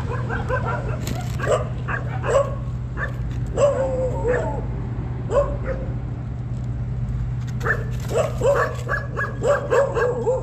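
Dog yipping and whining in short, high-pitched calls that come in clusters, with a quick run of them near the end, over a steady low hum.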